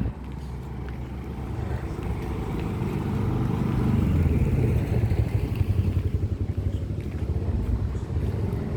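Street traffic: a motor vehicle engine, likely a motorcycle, passing close, growing louder to a peak about four to five seconds in and then easing off.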